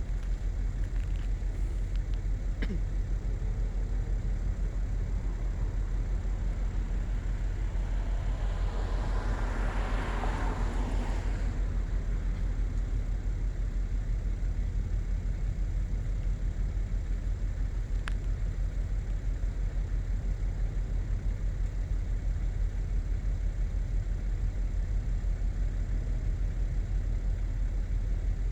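A vehicle passes by, its road and engine noise swelling and then fading about ten seconds in, over a steady low rumble. A short sharp click comes about two-thirds of the way through.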